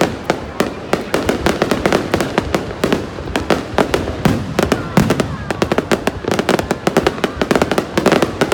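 Aerial fireworks display: a dense run of shell bursts and crackling stars, several sharp bangs and pops a second.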